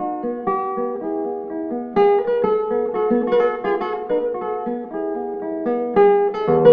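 Background music on acoustic guitar: plucked notes and chords in a steady flow.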